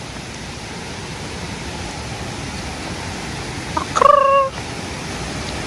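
Steady rushing of a waterfall, with a single short, loud call about four seconds in that sags slightly in pitch.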